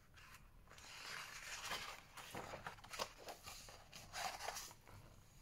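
A page of a large picture book being turned by hand: faint rustling and crackling of the paper, with a couple of sharper crinkles about three and four seconds in.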